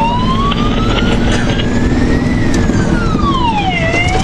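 Fire engine siren wailing, heard from inside the cab: the pitch rises for about two seconds, falls, and starts to rise again near the end. Under it runs the steady drone of the truck's engine and road noise.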